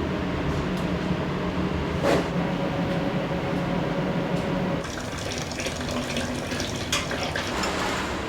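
Water running from a kitchen tap, filling a sink or pot, over a steady low hum that stops about five seconds in; a short knock about two seconds in is the loudest moment.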